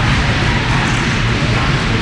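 Music playing over an arena's public-address system, heard under a steady, loud wash of rink noise.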